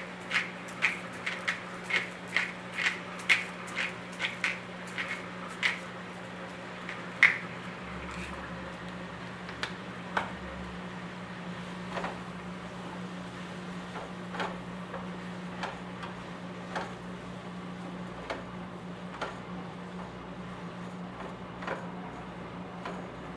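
Pepper mill cracking black pepper over the pan, a quick even run of clicks about two a second that stops about seven seconds in. After that come sparser single knocks every second or so, over a steady low hum.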